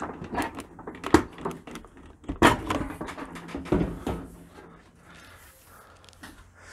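Stainless-steel front panel of a Bosch dishwasher door being pulled outwards off the door: a series of knocks and clicks, the two loudest a little over a second and about two and a half seconds in, then quieter handling.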